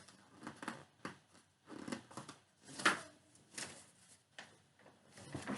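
Soft, irregular paper rustling and handling sounds as a page of a picture book is turned, with a sharper rustle about three seconds in.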